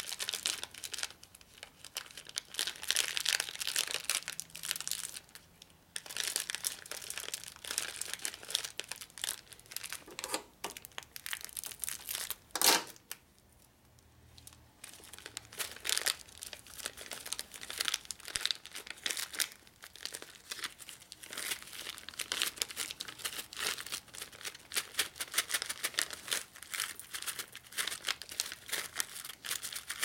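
Clear plastic bag of roller bearings crinkling and rustling as it is handled and worked open. About a third of the way through comes one sharp snap, the loudest sound, followed by a short lull before the rustling resumes.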